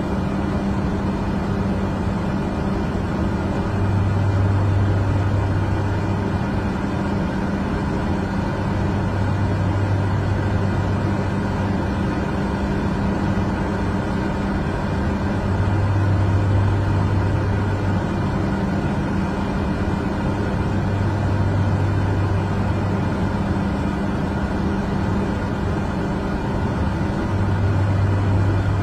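Steady drone of a jet airliner's cabin in flight: engine and airflow noise, with a low hum that swells and fades every few seconds.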